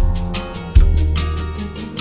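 Background music with heavy bass notes that land about every three quarters of a second, over a quick percussion beat.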